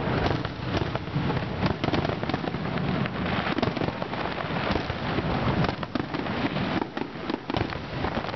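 Aerial fireworks display: a dense, continuous run of shell bursts and crackling, many overlapping cracks and bangs over a low rumble, thinning briefly near the end.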